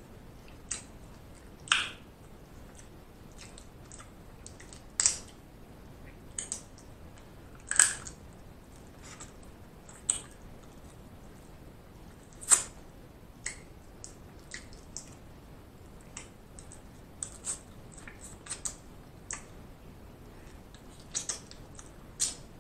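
Close-miked eating sounds from a person eating with his fingers: irregular wet mouth clicks and smacks from chewing and finger licking, a few of them louder than the rest.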